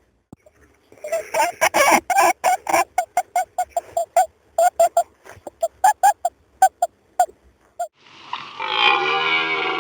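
Animal calls: a rapid flurry of short, repeated calls, then about eight seconds in a long, drawn-out lower call begins.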